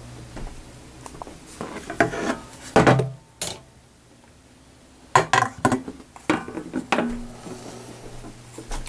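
Handling noise: scattered clicks, knocks and light clattering, in two bunches with a quiet stretch of about a second and a half between them.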